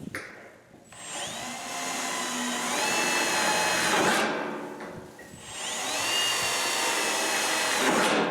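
Electric drill with a 1/4-inch bit boring holes through a sheet-metal roof skin panel. There are two runs of about three seconds each, with the motor's whine rising as it speeds up at the start of each run.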